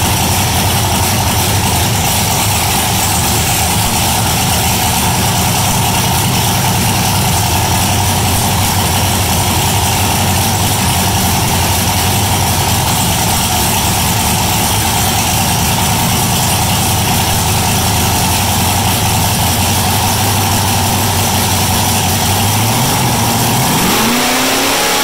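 A drag car's exposed race engine running at a steady fast idle, then revved near the end with a quick rise in pitch.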